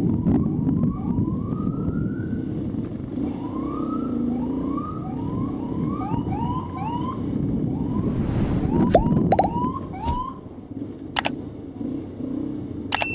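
Emergency motorcycle siren giving a run of short rising whoops, one after another, over the low running of the motorcycle engine and wind noise. A few sharp clicks sound in the second half.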